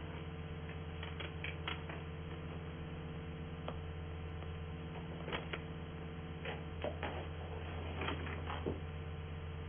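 A steady low hum runs underneath scattered soft clicks and rustles of things being handled: shoes and clothes being rummaged through in a closet, then a photograph being handled.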